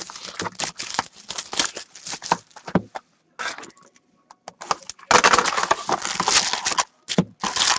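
Plastic shrink wrap crinkling and tearing as a sealed trading-card box is unwrapped. After a short pause comes a louder spell of cardboard and wrapper rustling as the box lid is flipped open over the foil packs.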